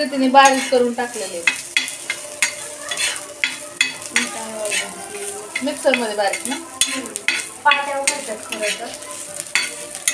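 Metal spatula scraping and tapping on a flat tava griddle in quick, irregular strokes as ground bombil, garlic and chilli are stirred and fried, with a light sizzle underneath.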